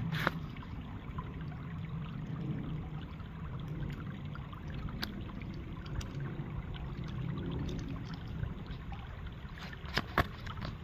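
Shallow stream running steadily over rocks, with a few sharp splashes and clicks from a hand and sandaled feet moving in the water, the loudest pair near the end.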